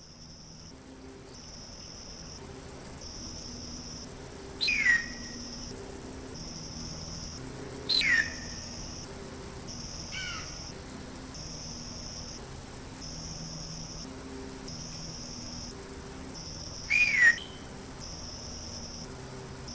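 Hawk giving harsh screams that fall in pitch, three loud ones several seconds apart and a fainter, shorter one between them, over a steady pulsing insect chorus that fades in at the start.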